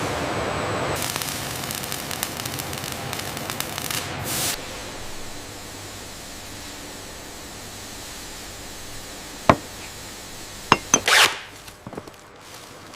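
Factory workshop noise: a steady hiss with rapid clicking for the first few seconds, then quieter steady noise broken near the end by a few sharp clicks and a short hiss.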